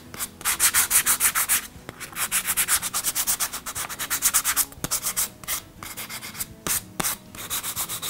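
Sandpaper on a hand sanding block rubbed over softwood pine boards in quick back-and-forth strokes, about five a second, lightly smoothing the rough edges of freshly cut mitre pieces. The strokes come in runs with a few short pauses.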